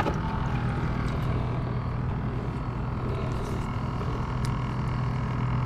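A boat motor running steadily as a low hum, growing slightly louder near the end.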